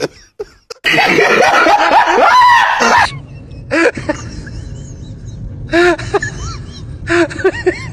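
Laughter: a loud burst of overlapping laughing about a second in, then short snickering giggles repeated from about four seconds on.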